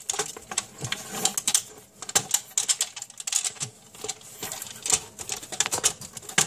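Irregular metallic clicks and rattles of BX armoured cable and its connector knocking against the sheet-metal fixture housing as the wires are fed through.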